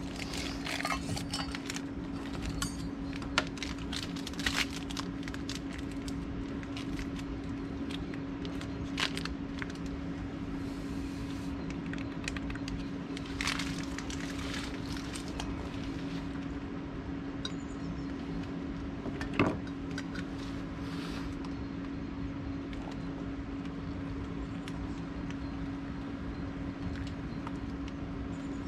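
Scattered light clicks, knocks and rustling from camping gear being handled, with one sharper knock about two-thirds of the way in, over a steady low hum.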